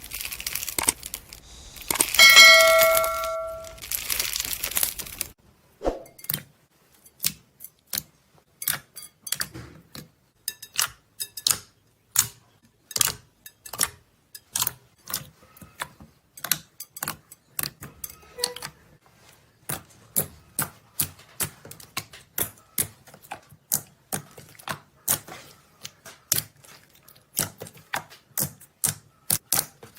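Slime being pressed and squeezed by hand, giving a long run of crisp clicks and pops about one or two a second. Near the start there is a few seconds of hiss with a short bell-like ding.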